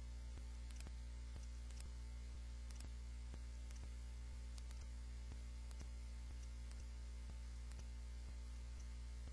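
Steady low electrical mains hum with faint, irregular clicks and crackle about once or twice a second: the recording's noise floor, with no speech or chanting.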